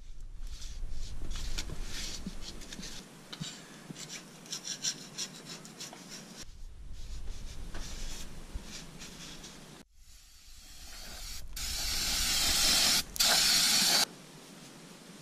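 Shop towel rubbing and wiping gear-oil residue from the inside of a truck's rear differential housing and the cover's mating flange, in irregular scraping strokes. About ten seconds in, an aerosol brake cleaner sprays in a loud, building hiss that pauses once and then cuts off sharply.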